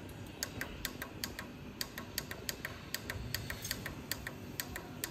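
Laser panel-repair machine clicking as it works: sharp, unevenly spaced clicks, about four a second.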